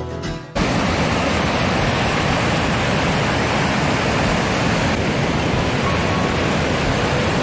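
Music cuts off abruptly about half a second in, giving way to the steady, loud rush of a flood-swollen river churning over whitewater rapids.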